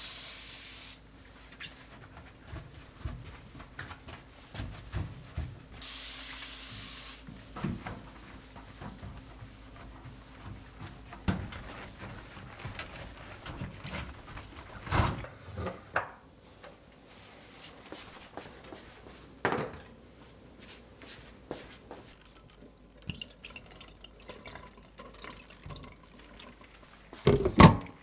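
Kitchen sink cleaning: two short hissing bursts of water, one at the start and one about six seconds in, among scattered knocks and clinks of items being handled, with a louder clatter near the end.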